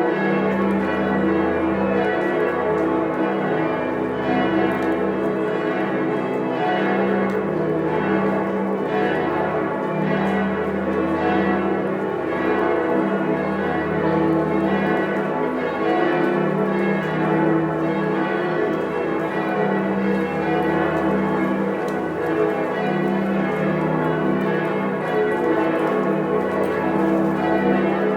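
Several large church bells swinging in a full peal, their different pitches overlapping in a continuous wash of ringing. A deep low tone swells and fades under it.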